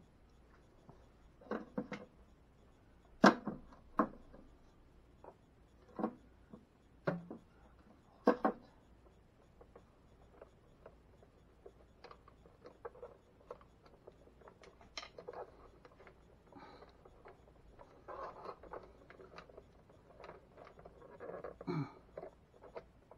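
Hand wiring work in a plastic electrical enclosure: stiff wires and hand tools handled close to the microphone, giving a string of sharp clicks and taps in the first nine seconds or so, then softer rubbing and scraping with one more tap near the end.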